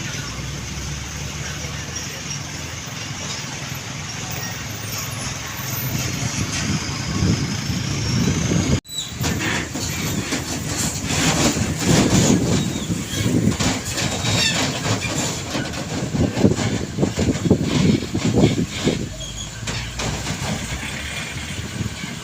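Heavy trucks and road traffic passing close by, with engine hum and tyre noise. There is an abrupt cut about nine seconds in, after which the sound is louder and more uneven.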